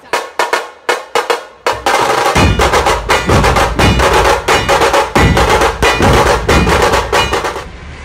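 Dhol-tasha drumming: a few separate strikes, then from about two seconds in a fast, dense rhythm of sharp tasha stick strokes over deep dhol beats, cutting off suddenly near the end.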